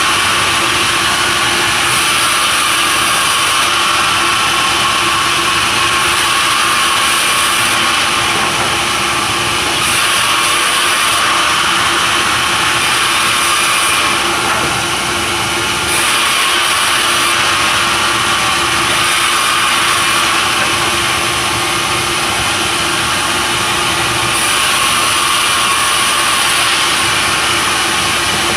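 Sawmill saw running continuously, cutting timber, with a steady hum under it. The sound shifts every few seconds and eases briefly about halfway through.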